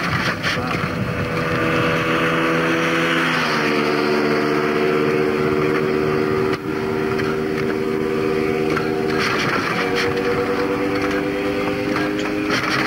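Vintage motorcycle engine running steadily, its engine speed shifting once about three and a half seconds in and again around ten seconds in.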